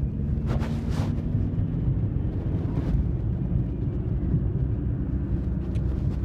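Steady low rumble of a running car, with a couple of light knocks about a second in.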